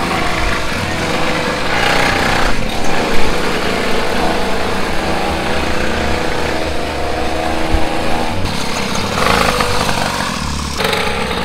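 Small engine of a children's mini ATV running steadily as it is ridden.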